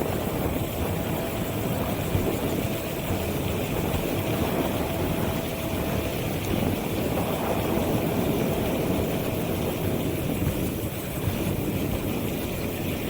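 Caroma P1 electric scooter being ridden: a steady low rumble of wind and tyres, with a faint steady whine from its 350 W motor that fades out about ten seconds in.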